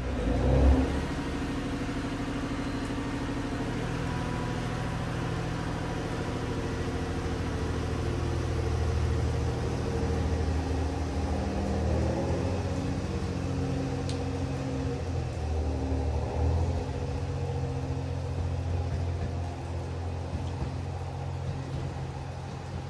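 Diesel engine of a JR West DEC700 diesel-electric railcar running, its note shifting and rising about ten seconds in. A brief low thump comes near the start.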